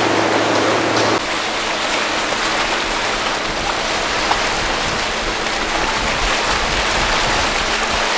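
Water and wind rushing past a moving boat: a loud, even rush with a low rumble of wind buffeting the microphone. It starts suddenly about a second in, replacing a steady low engine hum.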